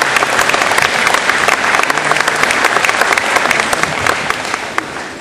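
Audience applauding, a dense crowd of hand claps that begins to thin out and die away near the end.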